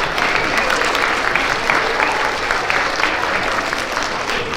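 Audience applauding, many hands clapping at once in a steady, sustained round of applause.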